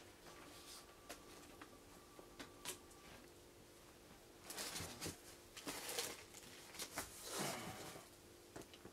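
Cardboard box and plastic wrapping rustling and crinkling as the packed item is handled: a few light clicks at first, then louder rustles about four and a half, six and seven and a half seconds in, over a faint steady hum.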